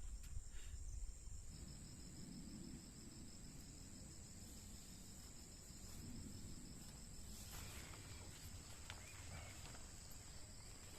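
Insects, crickets or similar, chirring steadily in a high, fast-pulsing trill, over a low rumble.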